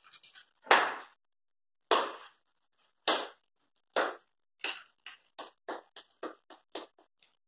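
A series of about a dozen sharp knocks or taps. They start about a second apart, then come faster and fainter until they stop shortly before the end.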